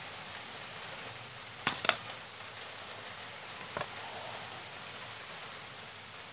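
Close handling noise over a steady hiss: a quick cluster of sharp clicks and rattles a little under two seconds in, and one more click near four seconds, as small plastic and wire parts are handled near the microphone.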